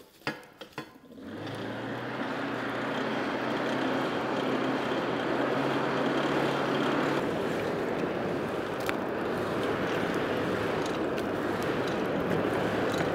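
Hand-crank forge blower forcing air up through a coal fire: a steady rushing whir that builds in over the first couple of seconds and holds, with a low hum that drops away about seven seconds in. A few light clicks come in the first second.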